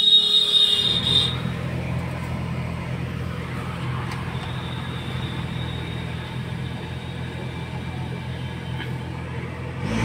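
Car AC blower fan running behind the dashboard with a steady low hum, coming in about a second in after a brief high tone. The blower noise is still there even though the blower motor has been cleaned out.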